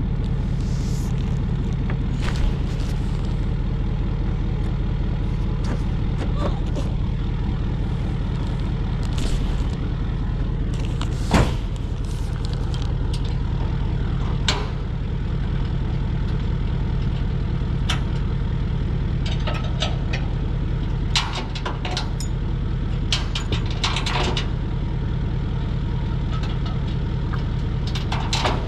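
Truck engine idling steadily, with scattered knocks and clatters over it, the loudest a single sharp knock about eleven seconds in.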